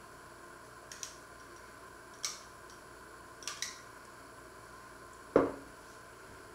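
A table knife clicks against a glass mustard jar a few times while mustard is scooped out, then a single louder knock near the end as the glass jar is set down on the wooden counter.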